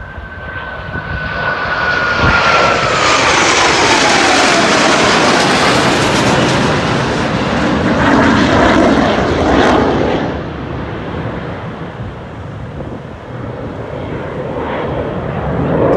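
Blue Angels F/A-18 Hornet jets flying past low in formation: a loud jet roar with a whine that falls in pitch over the first few seconds as they go by. The roar eases off about ten seconds in, then swells again near the end.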